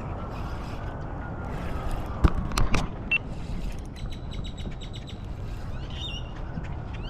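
Small birds chirping, with short repeated high notes in the second half and a few quick rising chirps near the end, over a steady low rush of wind and water. A few sharp knocks about two seconds in are the loudest sounds.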